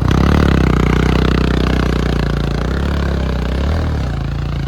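Motorcycle engine revving up from a throbbing idle and then running steadily under load.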